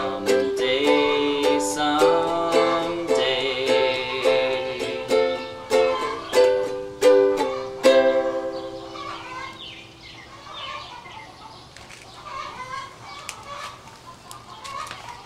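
Ukulele strummed in chords, the song's closing bars, ending on a final strum about eight seconds in. After that, chickens clucking faintly and irregularly.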